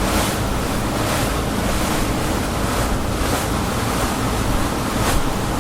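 Motor boat running over open water: a steady low engine rumble under a rushing wash of water and spray. The wash surges at a regular pace as the hull cuts through the waves, roughly every two-thirds of a second.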